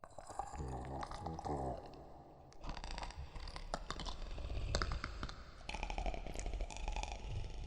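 Monster creature sound effect made from processed mouth and voice recordings: wet clicking and crackling with a low, creaky growl underneath, stronger in the first two seconds.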